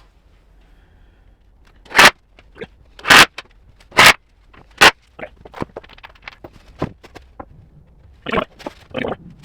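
Four loud knocks, roughly a second apart, then a run of lighter clicks and rattles and two more duller thumps near the end, as of wooden boards and tools being handled on a workbench.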